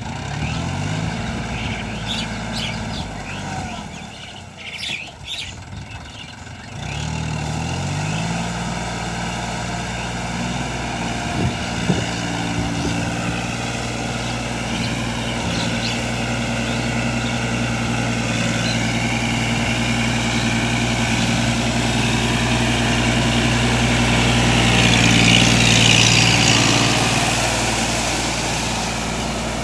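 Mahindra Jivo 365 DI tractor's three-cylinder diesel engine running under load as it drives a rotavator through wet paddy mud. The engine revs up twice in the first eight seconds and is loudest as the tractor passes close, about 25 seconds in. A few bird chirps sound in the first six seconds.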